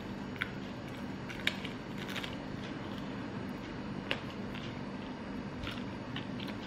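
Close-up eating sounds: crisp fried chicken being bitten and chewed, a handful of short sharp crunches scattered over a steady low hum.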